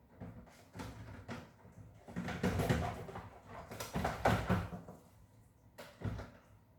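Kitchen handling noises: several knocks and short clattering scrapes, loudest in two clusters in the middle, with one sharp knock near the end.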